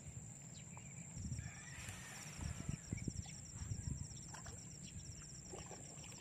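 Quiet rural outdoor ambience: a steady high insect whine, joined about a second in by a fast, even train of high chirps, with a few soft low thumps.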